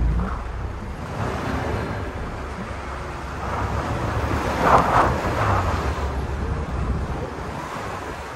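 Wind buffeting a phone microphone held out of the window of a moving Land Rover Defender 110, over the low rumble of the vehicle driving on the snow and ice track. The sound swells louder about five seconds in.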